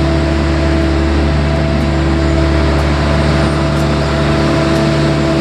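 A motor vehicle running steadily: a constant engine hum with a steady wash of noise and no revving, cutting off abruptly at the end.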